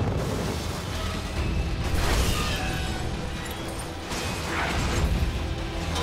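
Film score music over explosions and crashing debris, with louder hits about two seconds in and again about five seconds in.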